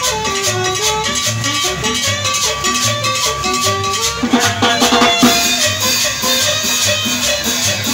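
Live Latin dance music from a small band: an upright bass plays a steady, regular bass line under a melody, with a metal scraper and other hand percussion keeping a rhythmic shuffle.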